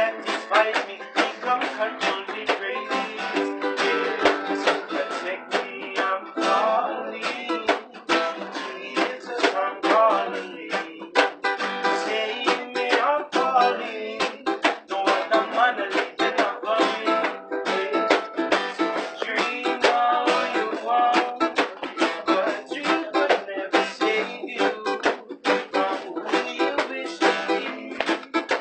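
Ukulele and two acoustic guitars strummed together in an instrumental jam, a continuous chordal strumming rhythm.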